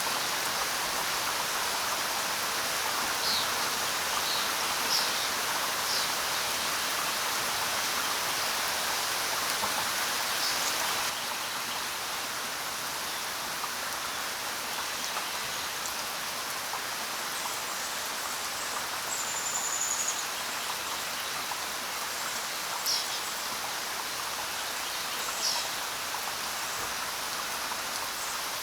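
Steady hiss of falling rain and running water, dropping slightly in level and changing texture about a third of the way in. A few short, high bird chirps sound here and there over it, and one brief whistle about two-thirds of the way through.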